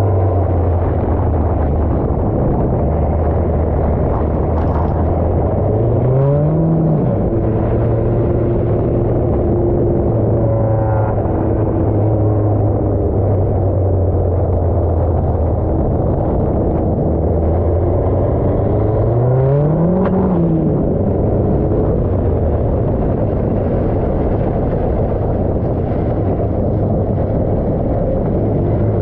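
Nissan D21 pickup's engine running hard under a constant rush of road and wind noise, picked up close from under the truck. The revs climb and fall back twice, about six and twenty seconds in.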